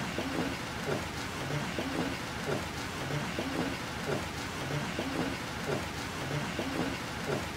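Hard rain falling steadily: an even hiss of rain on surfaces, with a low patter recurring about every half second to a second beneath it.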